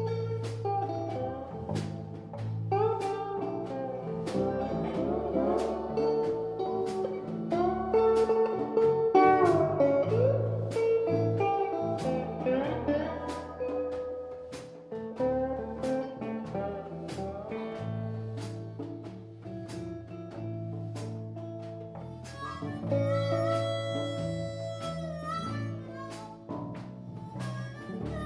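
Live blues band playing an instrumental passage: a resonator guitar lead with sliding notes over electric bass and a drum kit keeping a steady beat. A harmonica comes in about five seconds before the end.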